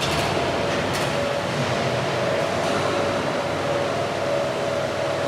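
Steady rushing noise with a faint hum, with a couple of light clicks about a second apart near the start.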